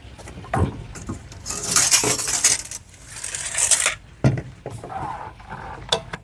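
Metal pieces clinking and knocking as they are handled, with a few sharp knocks and two longer hissing, scraping stretches about one and a half and three seconds in.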